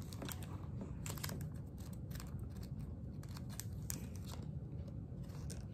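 Pokémon trading cards being handled and flicked through by hand: a run of soft, irregular clicks and rustles of card stock as cards are sorted and slid into slots.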